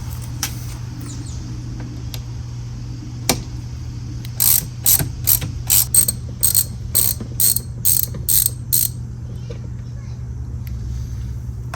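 Hand ratchet with a T50 Torx bit backing out a Jeep Wrangler door-hinge bolt: a couple of single clicks, then about a dozen even pawl clicks, a little over two a second, starting about four seconds in. A steady low hum runs underneath.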